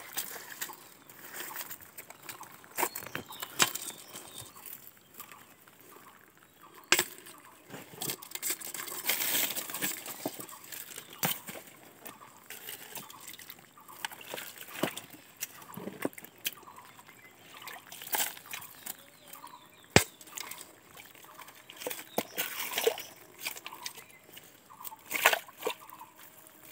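Hands sloshing and splashing in shallow muddy stream water and shifting stones and dead leaves, with irregular clicks and knocks of rock on rock. One sharp knock about twenty seconds in is the loudest sound.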